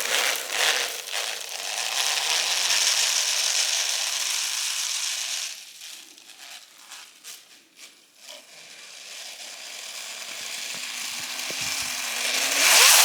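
A small RC snowmobile runs through snow, its motor and track making a steady hiss that drops away about five and a half seconds in and builds again near the end. Snow crunches at the start and just before the end.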